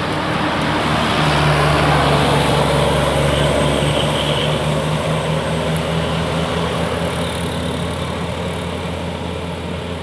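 A large bus passing close by, its engine drone and road noise building to loudest about two seconds in and then slowly fading.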